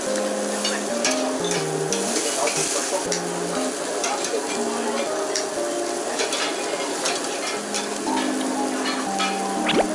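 Hanwoo beef sizzling on a tabletop barbecue grill, with light clicks of chopsticks and dishes. A short rising sweep sounds near the end.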